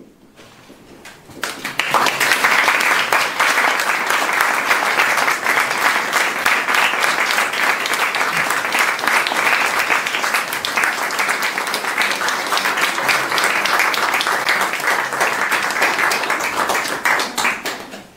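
Small audience applauding, starting about a second and a half in, keeping up steadily and cutting off suddenly near the end.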